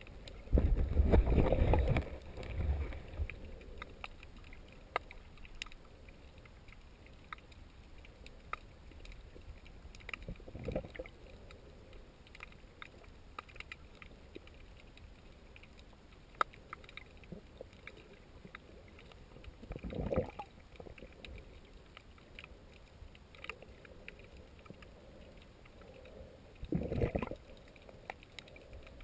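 Underwater sound picked up by a waterproof action camera: a faint hiss scattered with sharp clicks, and a loud low rush of moving water against the camera about a second in, with shorter rushes three more times later on.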